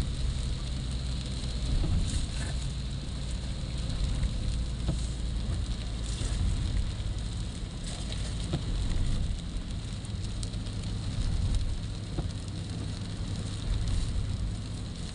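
Rain falling on a car's windshield and body, heard from inside the moving car, with scattered small ticks of drops striking the glass. Under it runs a steady low road rumble and the hiss of tyres on the wet road.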